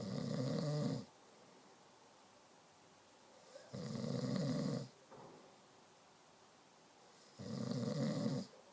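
Snoring: three snores, each about a second long, coming about every four seconds, with quiet between.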